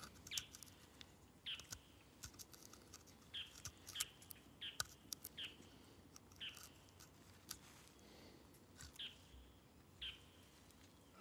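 Quiet wood carving: a small carving knife cutting a wooden figure, with light clicks and scrapes at each stroke. Short, high bird chirps that dip in pitch come every second or so.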